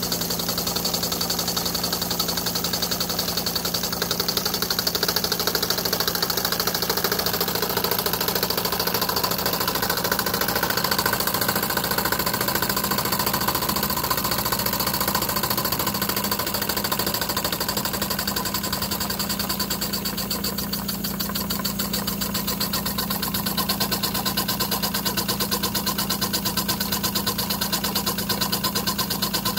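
Toy stationary steam engine running steadily, beating fast and evenly over a steady low hum, with its belts and line shaft turning small model workshop machines.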